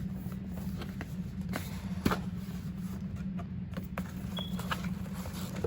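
Scattered light taps and clicks of a cardboard gift box being handled and opened, the sharpest about two seconds in, over a steady low hum.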